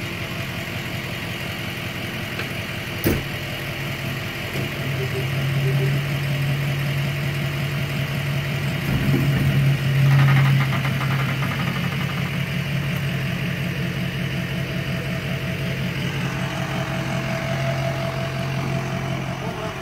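Tow truck engine idling steadily, its hum growing louder for several seconds in the middle, with a single sharp click about three seconds in.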